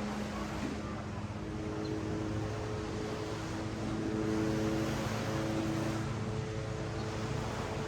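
Steady hum of a motor, several held tones that fade in and out, over the even wash of ocean surf.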